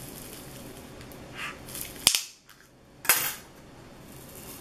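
A plastic pry tool levering a glued smartphone battery loose inside an opened phone. A brief scraping comes about halfway in, followed by two sharp snapping clicks about a second apart as the battery frees from its adhesive.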